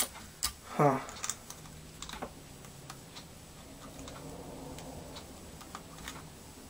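Small plastic clicks and taps of a webcam's suction-cup base and cable being pressed and handled on a tabletop, with a short falling sound about a second in.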